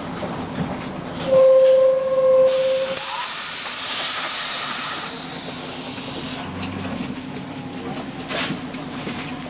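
Scania CN113CLL city bus standing at a stop: a loud steady beep lasts about a second, then a long hiss of compressed air from the bus's air system runs for about four seconds over the low hum of the idling engine. A few clicks come near the end.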